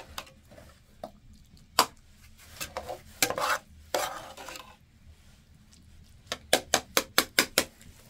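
A metal ladle stirring and scraping cooked food in an aluminium cooking pot, with scattered clinks against the pot. Near the end comes a quick run of sharp metal taps, about five a second, as the ladle knocks against the metal.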